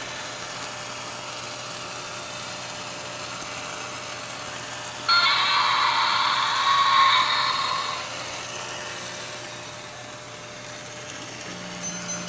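Steady hiss, broken about five seconds in by a loud, harsh buzzing sound that starts suddenly and lasts about three seconds.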